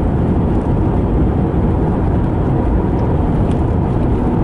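Car driving along: steady rumble of road and engine noise.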